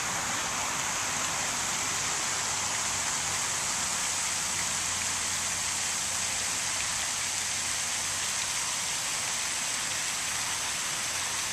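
Pond fountain spraying, its water falling back onto the pond in a steady splashing hiss.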